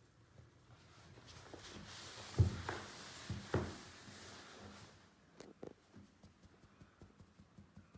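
Kittens moving about: a rustling hiss with a few soft thumps in the middle, the loudest about two and a half seconds in. It is followed by light, quick pattering taps of their paws.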